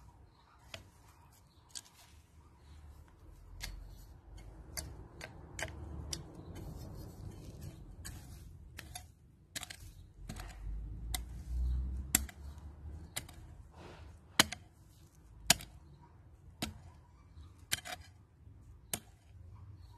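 Small garden hoe striking and scraping into soil mixed with leaf litter and kitchen scraps, a series of sharp irregular chops about one a second, louder in the second half.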